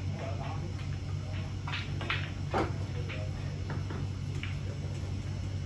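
Snooker balls clicking: several short, sharp knocks of the balls striking, the loudest about two and a half seconds in, over a steady low hum.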